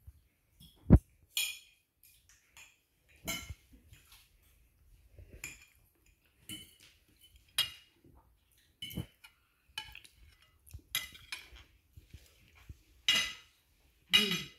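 Forks and knives clinking and scraping against ceramic dinner plates during a meal, in short irregular clinks, with a dull knock about a second in.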